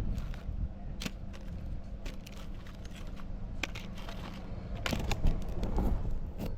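Fish and chips packaging handled and opened, paper rustling and crackling with a few sharp clicks, over a steady low rumble of handling or wind on the microphone.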